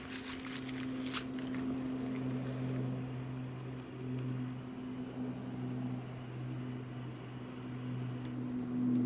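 Steady low engine drone from an unseen motor vehicle, with footsteps crunching on the bridge deck in the first second or so.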